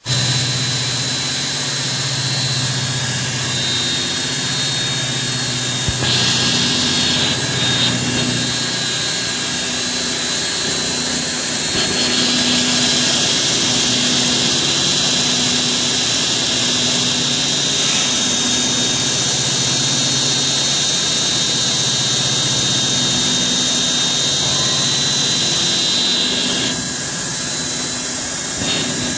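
MS Bead Mill 1L type B, a horizontal lab bead mill, running steadily: a loud whir with a high hiss and whine over a low hum, plus a faint low pulse repeating a little more than once a second.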